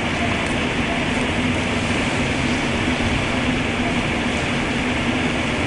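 Steady rushing noise with a constant low hum, the running sound of a large car ferry at sea heard on its open deck.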